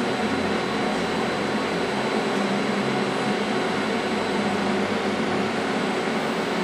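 Steady mechanical hum of a Fanuc S-420iF industrial robot with its servo drives engaged and brakes released while the arm is jogged slowly by hand control.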